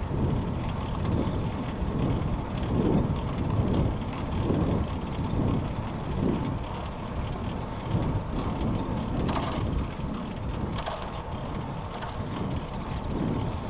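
A bicycle being ridden uphill, with a low rumble of road and wind noise that surges roughly once a second. Three short, sharp high clicks come in the second half.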